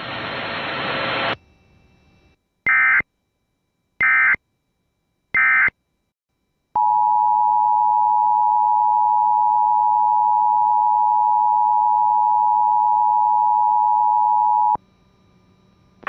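Emergency Alert System header: three short screeching data bursts about a second and a half apart, then the steady two-tone EAS attention signal held for about eight seconds. Together they mark the start of a new alert, here a flash flood warning. A second of hiss comes before the bursts.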